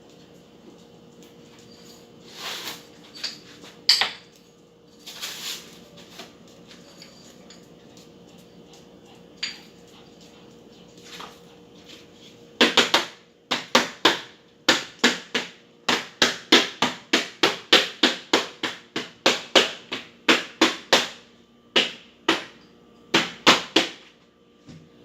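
Hammering: a few scattered knocks, then about halfway through a fast, steady run of hammer blows, two or three a second.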